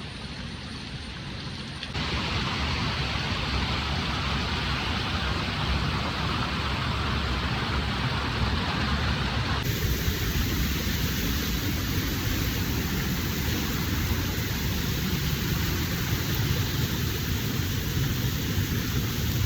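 Waterfall: a steady rush of falling water, jumping louder about two seconds in and shifting in tone about ten seconds in.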